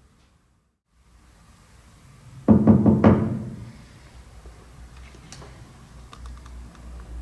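Two loud, resonant strikes about half a second apart, ringing briefly and fading: a stage sound cue that someone is at the door. Faint clicks and shuffling follow.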